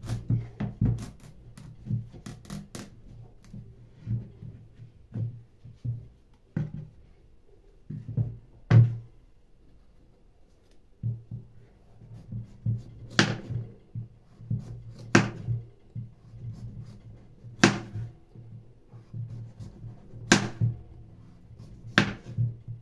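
Kitchen knife cutting through a raw butternut squash on a plastic cutting board: a run of soft thuds and scraping strokes, then single sharp knocks of the blade striking the board as each slice comes off, about every two seconds in the second half.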